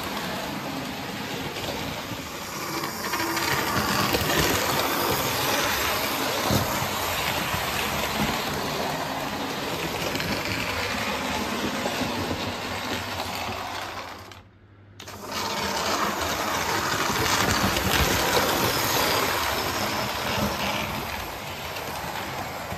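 OO gauge Hornby model train running round the track: a steady clatter and rattle of the wheels over the rail joints, with the hum of the small motor. The sound drops out for about a second roughly two-thirds of the way through.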